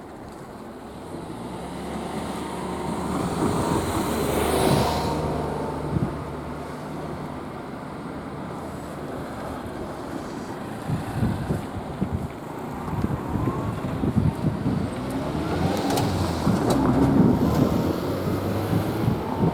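Diesel railcar running near a level crossing, its engine giving a steady low hum that grows louder, with wind buffeting the microphone.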